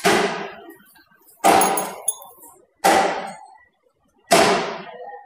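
Hammer blows on metal: four evenly spaced, sharp strikes about a second and a half apart, each ringing briefly before dying away.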